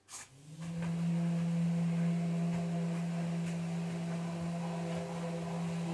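A workshop machine starts up about half a second in, its pitch rising briefly as it gets going, then runs as a steady low hum at a constant pitch.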